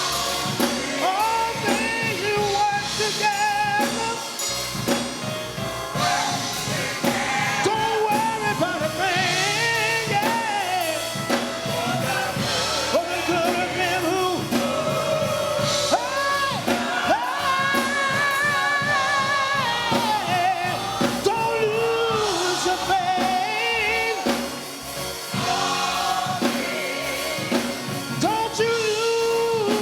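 Gospel song sung with instrumental accompaniment; the voices hold long, wavering notes.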